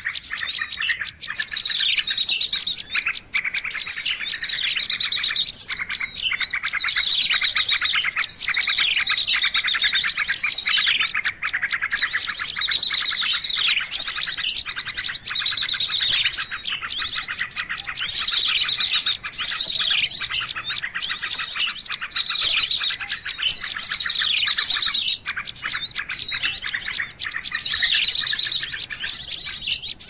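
Small songbirds chirping and trilling without a break: rapid high notes with repeated falling sweeps. It is a masteran lure-call recording for small birds, the kind used to draw in wild birds and to teach caged songbirds.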